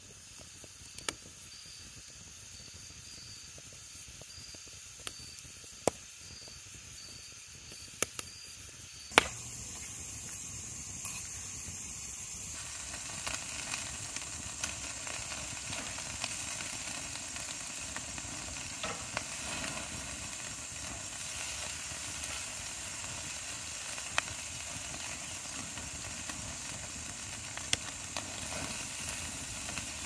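A wood fire crackling in a steel fire pit, with a few sharp pops. After about ten seconds it gives way to bacon strips sizzling on a wire grate over the fire: a steady, louder frying hiss with occasional pops.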